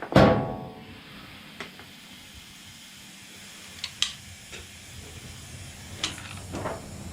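A metal tool or part set down hard on metal with one loud ringing clang at the start, followed by a few light clinks and taps of hand tools over a steady shop hiss.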